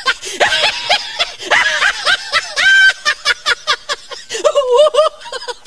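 A person laughing: high-pitched snickering and giggling in quick breathy bursts, with a run of rapid short laughs in the middle.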